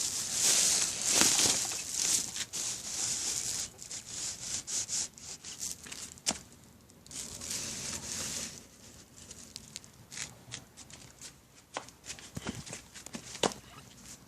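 Rustling and crinkling, like something being handled or scratched through, with scattered sharp clicks and taps. It is loudest in the first few seconds and sparser after that.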